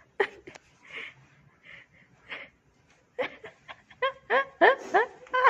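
A person laughing in short bursts, with a quick run of louder laughs in the second half.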